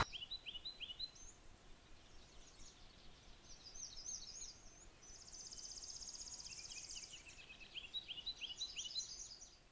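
Faint songbirds singing in a spring marsh: runs of short, high, down-slurred notes repeated several times, and a rapid dry trill about two seconds long starting about five seconds in.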